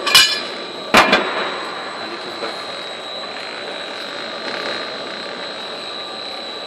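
Stamping press in a factory with its machinery running: a steady hum with a thin high whine. Two sharp knocks come in the first second.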